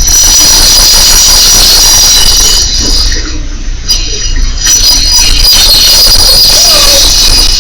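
High-pitched squealing: several steady shrill tones held over a loud hiss and low rumble, breaking off briefly about three seconds in and then coming back.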